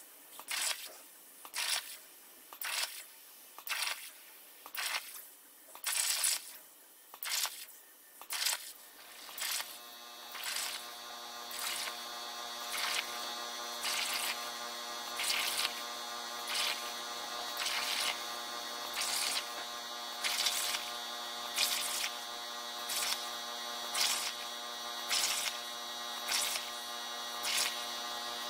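CNC plasma torch, a Hypertherm Powermax45 XP on fine-cut consumables, firing short hissing bursts into 16-gauge sheet steel at a steady rate of about one and a half a second, each a separate pierce-and-cut of a dotted line. About a third of the way in, a steady hum of several tones fades in under the bursts.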